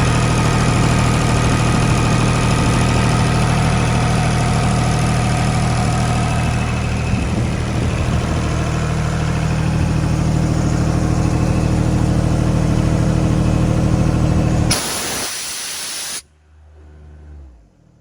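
Airman PDS50S engine-driven air compressor's diesel engine running steadily, then a loud hiss of escaping air for about a second and a half near the end as the machine shuts down. The engine cuts out suddenly and a brief falling hum follows as it winds down.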